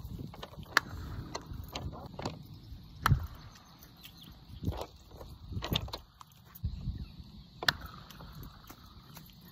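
Plastic wiffle ball bat striking wiffle balls: three sharp hollow cracks, about a second in, at about three seconds, and near the end.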